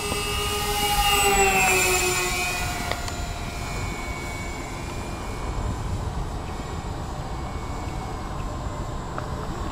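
Twinstar twin-motor electric RC plane flying past: the whine of its motors and propellers is loudest about a second in, drops in pitch as it passes, then carries on as a fainter drone over low wind rumble on the microphone.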